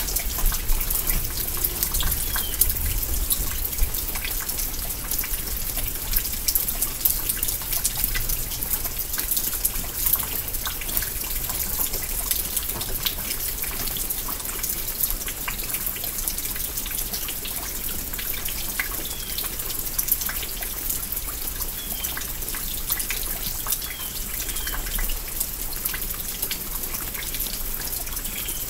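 Light rain falling steadily, with many separate drops ticking close by.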